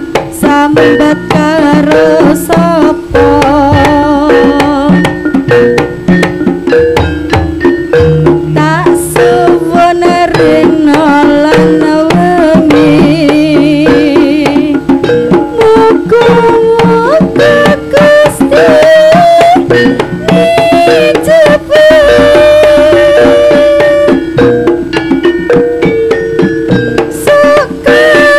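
Live East Javanese jaranan gamelan music played loudly over loudspeakers: kendang hand drums beating a busy, fast rhythm under repeating gong-chime notes and a wavering melody line.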